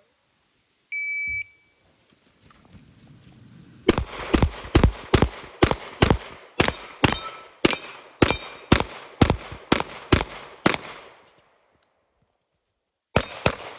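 Competition shot timer gives one short high beep, then a pistol fires a fast string of about twenty shots, two to three a second. After a pause come two more quick shots near the end.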